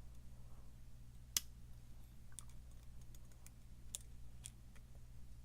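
Small sharp metallic clicks of a lock pick and tension wrench working the pins of a pin-tumbler lock, the loudest about a second and a half in and another near four seconds, with fainter ticks between. A low steady hum runs underneath.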